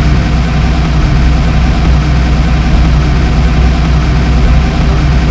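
Heavy vehicle engine idling steadily with a deep, low rumble.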